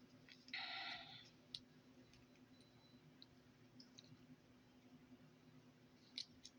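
Near silence with a faint steady hum, broken by a short scrape or rustle about half a second in and a few light clicks, from hands handling plastic Play-Doh molds.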